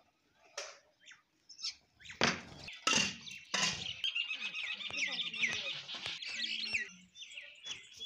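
A flock of house sparrows chirping, with common mynas among them: a few loud, harsh bursts about two to four seconds in, then a fast, busy stream of short chirps that eases off near the end.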